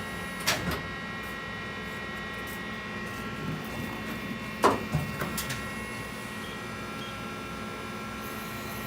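Mori Seiki NL1500Y CNC lathe running with a steady hum of several fixed tones while its spindle is positioned on the C axis. There is a click about half a second in and a sharper clunk about four and a half seconds in.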